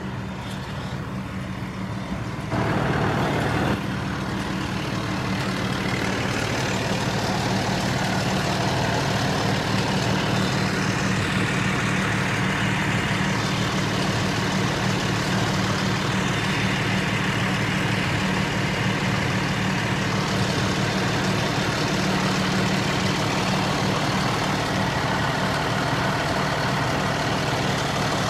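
Fire engine's engine running steadily, a continuous low hum that gets louder about three seconds in.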